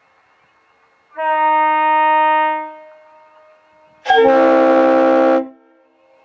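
Two air horn blasts in turn, a train horn and a truck air horn. The first, about a second in, is a steady single-pitched blast of about a second and a half that echoes as it dies away. The second, about four seconds in, is louder and harsher, several tones sounding together with an airy hiss, and cuts off after just over a second.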